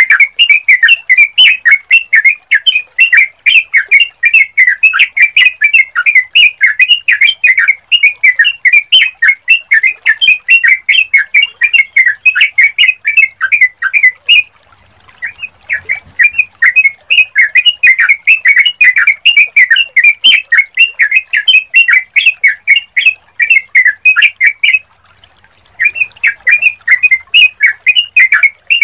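Yellow-vented bulbul (trucukan) song: a fast, continuous run of short chirping notes. It breaks off twice for about a second, once midway and once near the end.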